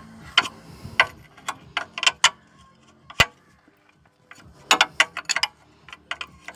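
Wrench loosening the ball joint nut on a car's front suspension: scattered sharp metal clicks, with a quick run of clicks about five seconds in.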